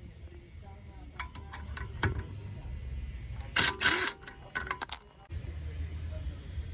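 Metallic clinks and clatter, with a louder rattling clatter about three and a half seconds in and a brief high ring just before five seconds.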